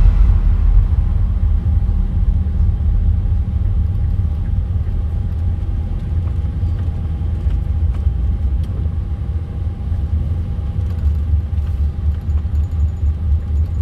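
Car driving, with the steady low rumble of engine and tyres on the road.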